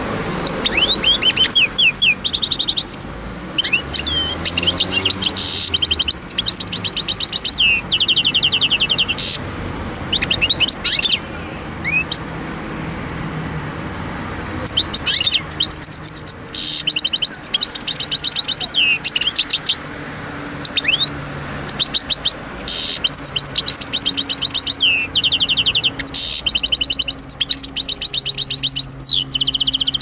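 Goldfinch × canary hybrid (a goldfinch mule) singing: fast trills and rapid runs of high repeated notes in phrases of a second or two, with a longer pause around the middle.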